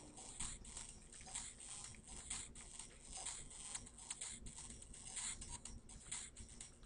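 Faint, irregular clicks and short scratchy strokes, several a second, from a hand working a computer pointing device while dabbing and dragging an eraser brush.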